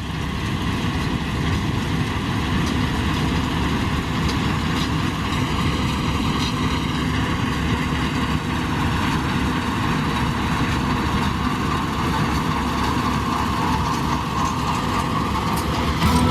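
Case IH 6140 combine running steadily as it harvests soybeans, a continuous engine-and-machinery drone that grows louder in the first second, then holds level.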